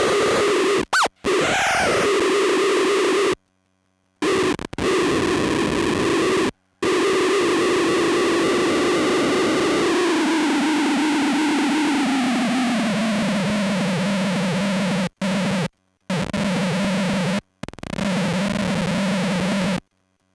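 Buzzing, noisy synth-fuzz drone from a feedback-looping noise pedal chain (Lost Soul looper into a Sketchy Sounds Gorantula sub-octave synth fuzz). It is chopped by a Krackatone momentary switch into abrupt dead silences several times. Its pitch slides down about halfway through, and it cuts off near the end.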